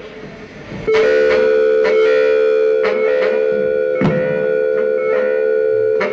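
Live band music: after a quieter opening second, a loud sustained droning chord comes in abruptly and holds, with drum hits about once a second.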